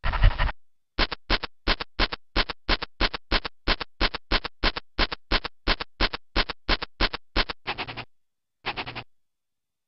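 Cartoon dog scratching sound effect from the After Dark 'Bad Dog' screensaver: a quick run of short scrapes, about three a second, then two longer scrapes near the end.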